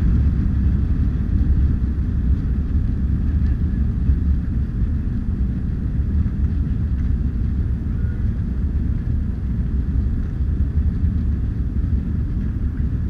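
Jet airliner heard from inside the cabin during take-off: a steady, deep rumble of engine and airflow noise.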